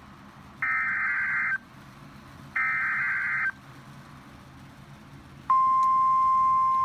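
Emergency Alert System SAME header bursts announcing a Special Marine Warning: two harsh digital data bursts, each about a second long and a second apart. About five and a half seconds in, the steady single-pitch 1050 Hz weather-radio alert tone begins and holds.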